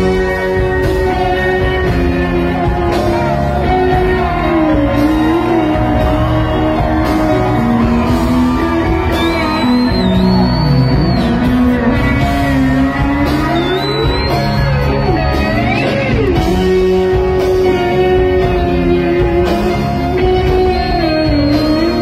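Live rock band playing, led by an electric guitar holding long notes that waver and slide up and down over bass and drums, heard from the audience in a large hall.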